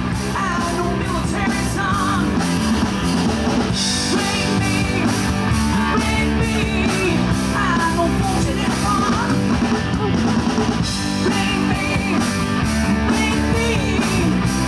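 Rock music with a singer, drums and guitar, loud and steady throughout.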